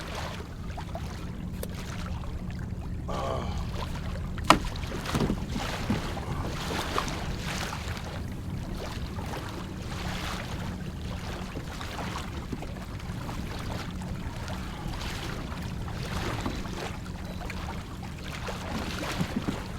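Sitting in a kayak on open water: a steady low rumble with scattered knocks and clicks from handling, the sharpest one about four and a half seconds in.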